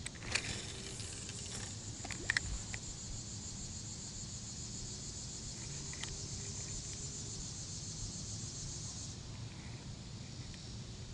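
Steady high-pitched insect chorus that stops about nine seconds in. A few sharp clicks sound near the start and about two seconds in.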